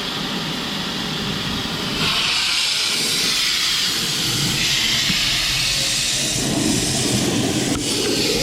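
High-pressure drain jetter blasting water, a steady hiss with a machine running underneath, growing louder and brighter about two seconds in.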